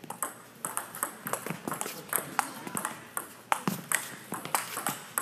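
Badminton rackets striking a shuttlecock in a rally: a quick, irregular string of sharp pings.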